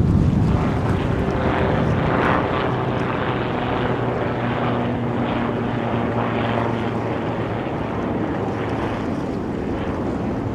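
Aircraft engines passing overhead as a steady drone with a low hum that fades after about seven seconds, with wind buffeting the microphone.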